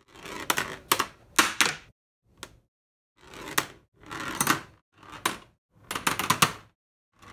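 A marble rolling and clattering down the tracks and zigzag stair piece of a magnetic marble run stuck to a refrigerator door, in several separate stretches of rattling clicks with short silent gaps between them, and a single click about two and a half seconds in.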